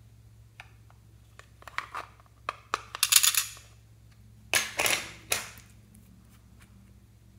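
Small hard objects clicking and tapping as a small glass bottle of gold liquid makeup is picked up and handled, with two louder bouts of clatter and scraping, about three seconds in and around five seconds in.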